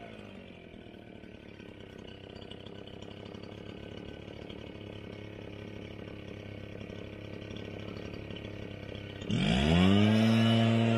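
Gas leaf blower engine throttled down to idle, idling quietly for about nine seconds, then revved back up to a steady high speed near the end, its pitch sweeping up sharply.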